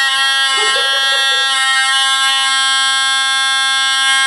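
An old 1980s ADT photoelectric smoke alarm sounding a loud, continuous, high-pitched tone rich in overtones. It is not beeping. It has been set off through its test pin as a test.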